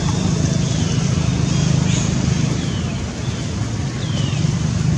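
Steady low background rumble, with a few short, high, falling squeaks about two and a half and four seconds in.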